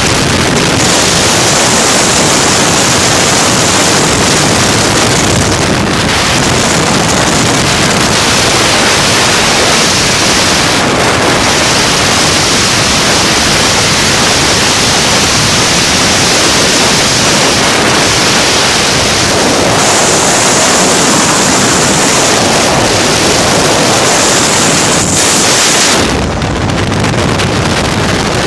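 Loud, steady rush of wind buffeting the microphone, as when moving at speed, with a change in tone about 26 seconds in.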